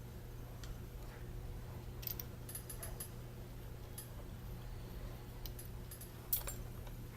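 Light clicks and taps of small tools and parts being handled while taking apart a camera body, a cluster near the middle and the sharpest click about six seconds in, over a steady low electrical hum.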